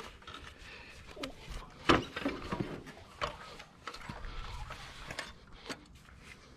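Hard objects being handled and rummaged through: scattered knocks and clatters with rustling, and one sharp knock about two seconds in.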